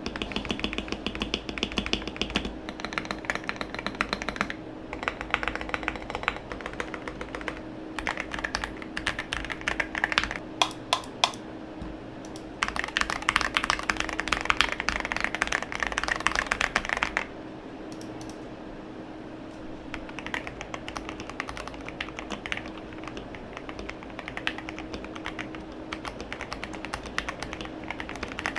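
Typing on a KBD67 Lite R2 mechanical keyboard with lubed Gateron Black Ink linear switches and Drop MT3 keycaps: rapid keystrokes in runs. A few single louder strikes come a little over a third of the way in, followed by a fast, busy stretch around the middle, then lighter typing.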